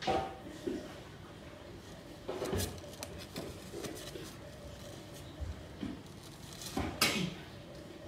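A few brief rustling, scuffing noises: one right at the start, another about two and a half seconds in, and the loudest about seven seconds in.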